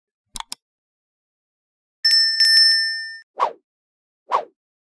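Sound effects of a subscribe-button animation: a quick double mouse click, then a notification bell dinging twice and ringing for about a second, then two short pops as the icons appear.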